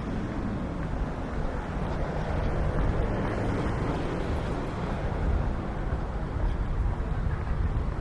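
Steady low rumble of a motor vehicle's engine over outdoor street ambience.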